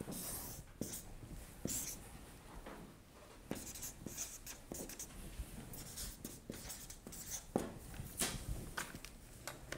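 Felt-tip marker drawing and writing on flipchart paper: a run of short, irregular scratching and squeaking strokes as lines are drawn and words written, fairly faint.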